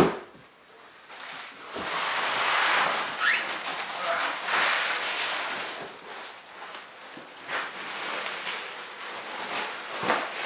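Packaging being handled: a sheet of packing foam and a plastic-bagged item rustling and crinkling as they are pulled out of a cardboard box, louder for a few seconds near the start, with scattered crackles after. A sharp knock right at the start is the loudest sound.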